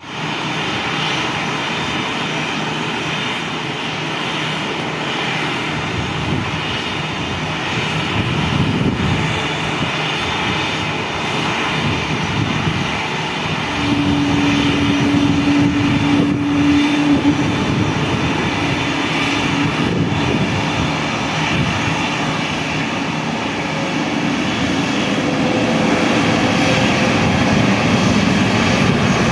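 Airbus A321neo jet engines running during the takeoff, getting louder about eight seconds in and again about fourteen seconds in, with a clear held tone for a few seconds after the second rise.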